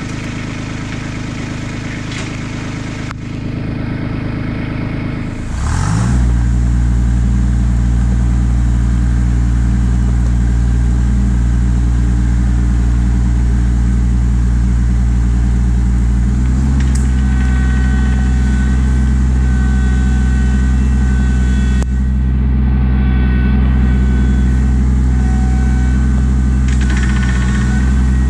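Kubota LX2610 compact tractor's three-cylinder diesel running low, then revving up about six seconds in and holding steady at high throttle. It steps up again about two-thirds of the way through, when a thin high whine joins in.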